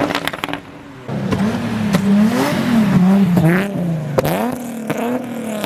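Car engine revving in short, shallow blips, its note rising and falling, with a few sharp clicks.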